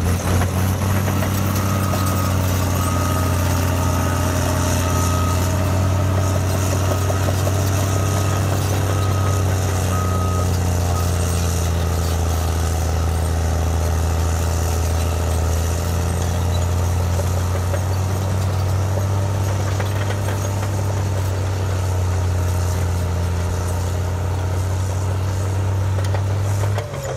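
Caterpillar D7R Series 2 bulldozer's diesel engine running hard with a steady low drone as it pushes dirt piles. A reversing alarm beeps about once a second for roughly the first eleven seconds, then stops.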